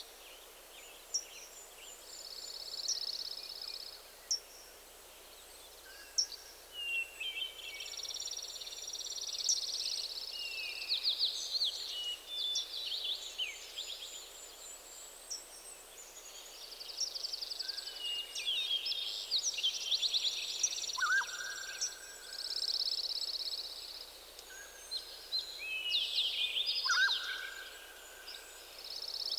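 Several songbirds singing at once in a forest: high trills and quick chirping phrases overlap one another, with a few short, lower whistled notes between them.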